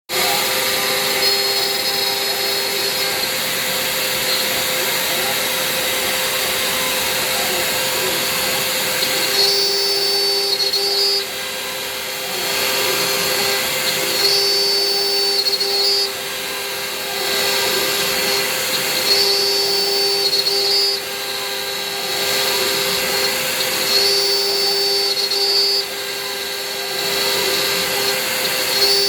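Hobby CNC milling machine running: a steady machine hum, with a higher whine and a louder tone that come and go in a regular cycle about every five seconds.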